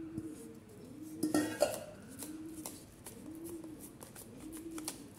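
A pigeon cooing over and over in a low rising-and-falling call. A clatter about one and a half seconds in, and light clicks and scrapes, come from the metal bowl and tart tin as biscuit crumbs are tipped out and pressed down with a silicone spatula.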